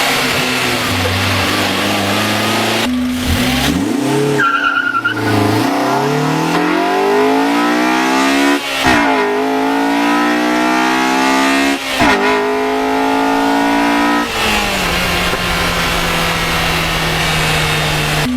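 Honda Accord Euro R's engine accelerating hard through the gears: its pitch climbs steadily, drops sharply at two gear changes about halfway and two thirds of the way through, then settles to a steady drone near the end.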